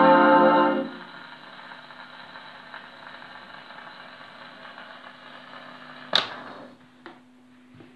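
A 78 rpm shellac record on a valve radiogram finishes a dance-band fox-trot, the last chord stopping about a second in. The needle then runs on in the run-out groove with steady surface hiss and crackle over a low hum from the radiogram. A sharp click about six seconds in, and a smaller one a second later, after which the hiss drops away.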